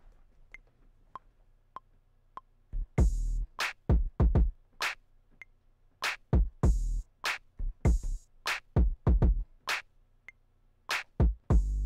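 Maschine metronome count-in: four evenly spaced clicks, the first higher in pitch. About three seconds in, a hip-hop drum-machine beat starts with heavy kicks and crisp hi-hat and snare hits, the clicks carrying on beneath it. Synth notes from a Moog Grandmother, played live from a MIDI keyboard, sound over the beat while it records.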